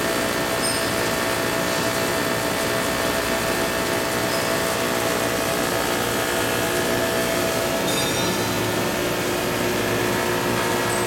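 PVC shrink film blowing machine running steadily: an even mechanical noise from its motors and film rollers with several steady tones held through it.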